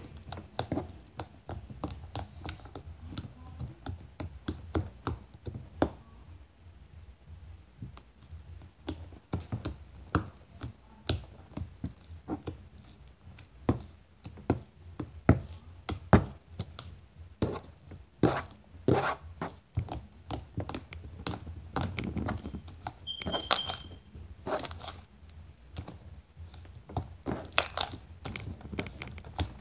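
Sticky homemade jiggly slime being kneaded, stretched and pressed by hand on a tabletop, giving irregular sticky clicks and pops with soft thumps as it hits the table. One brief high squeak about three-quarters of the way through.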